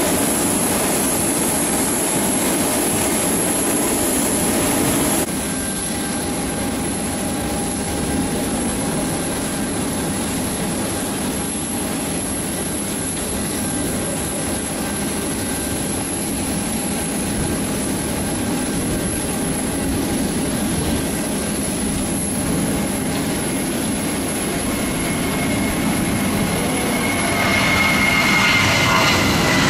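Twin-engine jet airliner's turbofan engines on a take-off run: a steady rumble and whine that swells near the end as the aircraft lifts off and passes, its whine falling in pitch.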